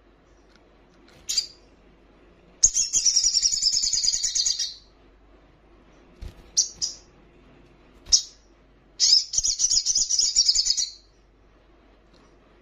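Olive-backed sunbird calling: a few short, high single chirps and two fast, high-pitched trills of about two seconds each, the second starting about nine seconds in.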